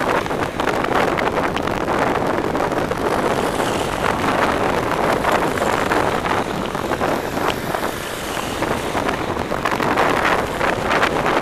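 Wind rushing over the microphone of a camera on a moving bicycle, mixed with the noise of cars and vans passing close alongside in traffic.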